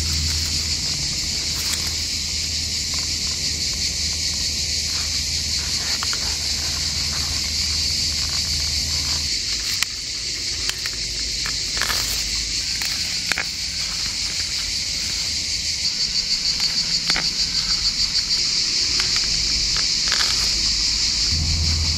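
Insects singing in a loud, steady, high-pitched summer chorus that pulses rhythmically toward the end. A few sharp snaps and crackles of dry straw mulch and stems come through as an onion is gripped and pulled from the soil.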